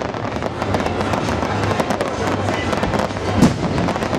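Aerial fireworks bursting in quick succession, a dense crackling and popping, with one louder bang about three and a half seconds in.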